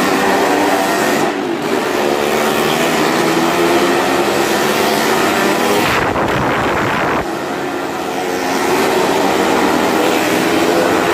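Several motorcycle engines running hard as the bikes circle the vertical wooden wall of a well-of-death drum, a steady, loud engine din. About six seconds in, a harsher, louder sweep lasts just over a second as a bike passes close.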